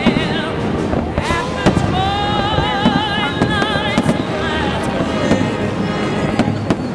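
Aerial firework shells bursting in a stream of sharp bangs and crackles, over music with long, wavering held notes.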